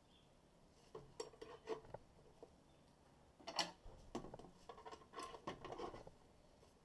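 Faint clinks, knocks and rubbing from the SilverCrest bread maker's non-stick metal baking pan being handled while packing material is pulled out of it. A few short knocks come about a second in, and a denser run of clinks from about three and a half to six seconds.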